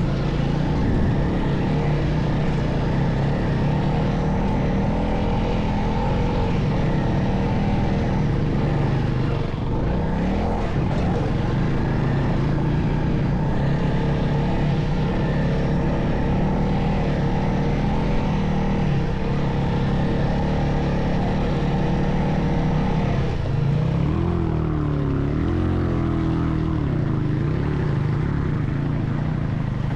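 Vehicle engine running steadily under load, with its pitch rising and falling for a few seconds about 24 seconds in.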